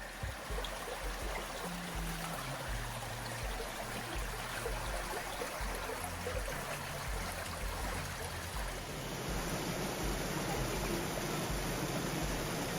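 Creek water rushing steadily over rocks, with low sustained notes of background music underneath.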